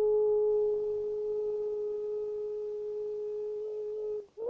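A woman's voice holding one long, steady note without words, easing slightly in loudness. Near the end she starts a short note that rises and then falls.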